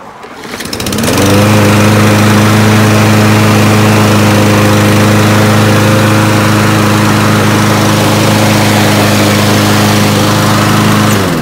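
Craftsman Gold 140cc push-mower engine starting up, running at a steady speed for about ten seconds, then shutting off near the end. It is running with a freshly fitted air filter in place of a dirty one that made it miss and die under load.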